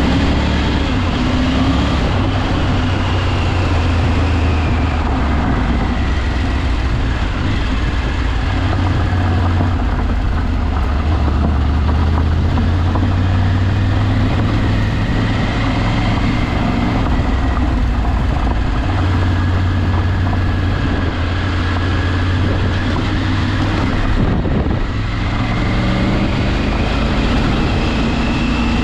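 Vehicle engine running under way with a steady low drone, its pitch slowly rising and falling with the throttle.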